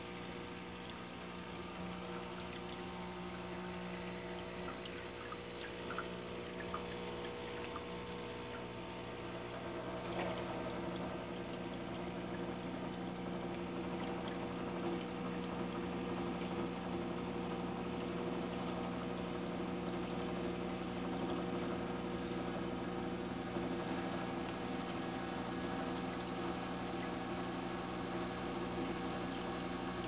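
A Diletta Mio espresso machine's pump runs with a steady hum while water pours from the group head into the drip tray, as the boiler is filled and flushed on first start-up. The sound grows a little louder about a third of the way in.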